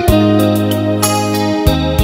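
Background music: sustained instrumental notes over a bass line, with a steady beat.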